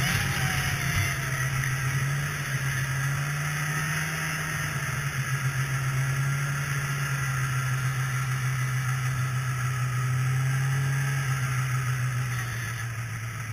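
Polaris two-stroke snowmobile engine running at a steady trail speed, a constant low drone under a steady hiss. It eases off slightly about two seconds in and picks up again near the end.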